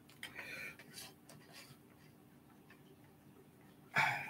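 Soft clicks and scrapes of an Irwin one-handed bar clamp being squeezed and tightened onto a wooden model, then a sharper, louder clack near the end.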